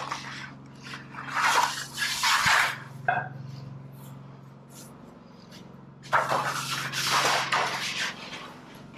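Sheet aluminum trim stock being handled and bent on a sheet-metal brake: two long stretches of rustling, scraping metal, a couple of seconds each, with a sharp click between them. A generator hums steadily underneath.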